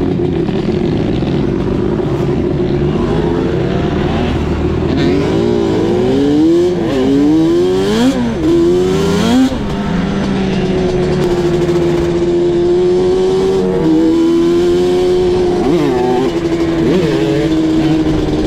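Yamaha Banshee 350 quad's twin-cylinder two-stroke engine running hard at speed. It holds a steady high note, then rises and falls quickly several times between about five and ten seconds in as the throttle is worked, before settling to a steady pull again. Wind rumble on the helmet microphone sits underneath.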